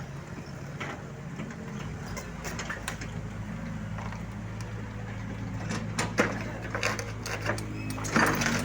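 Heavy equipment's diesel engine running steadily, with several sharp knocks and clanks in the second half.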